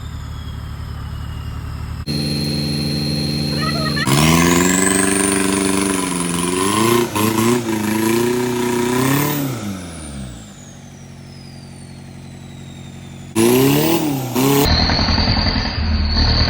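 Off-road 4x4 engine revving hard, its pitch climbing, wavering and then falling away, with a second short burst of revs near the end.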